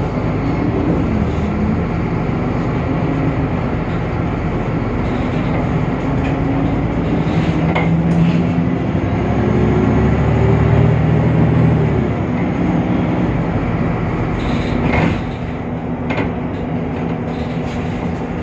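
Temsa Avenue LF city bus's DAF PR 228 six-cylinder diesel engine pulling away, its note rising in several steps as the ZF Ecolife automatic gearbox shifts up, then easing off about two-thirds of the way through. A few sharp knocks come over the engine sound.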